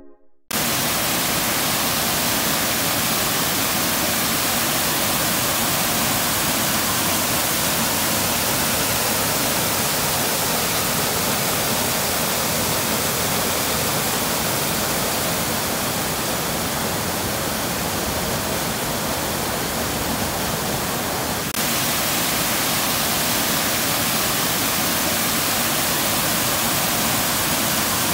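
Waterfall rushing steadily, an even hiss of falling water. The sound shifts slightly in level about three quarters of the way through.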